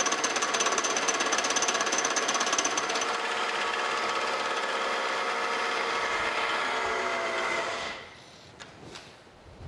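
Offset boring head on a milling machine taking an interrupted cut, knocking rapidly each time the cutter meets the gap in the bore. The rapid knocking stops about three seconds in and the machine runs on steadily, then it cuts out about eight seconds in.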